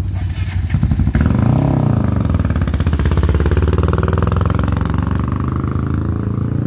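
Sport ATV engine revving up close: it gets loud about a second in, rises and falls in pitch, then runs steadily.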